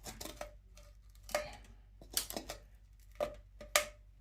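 Scraping and scratching at hard buildup inside a dirty 2-inch drain pipe, about half a dozen short irregular strokes, a few with a faint ring.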